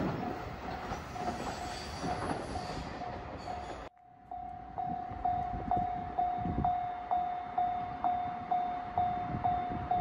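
A freight train's tank wagons rolling away over the rails with wheel clatter, while a level-crossing alarm bell rings faintly. About four seconds in it cuts to the crossing alarm bell ringing loudly and steadily, one pitch struck about twice a second, with the barrier down for an approaching train.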